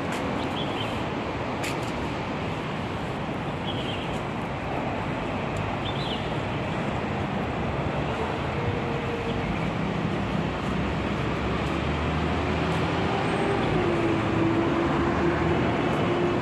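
Steady city street traffic noise, with a large vehicle's engine running close by and growing louder in the second half.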